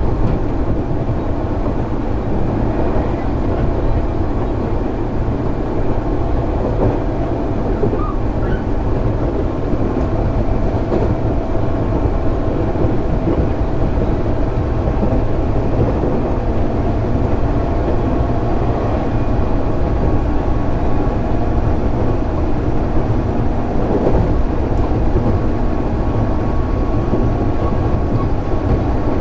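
JR East 205 series 600 subseries electric train running on the line: a steady rumble of wheels and running gear on the track.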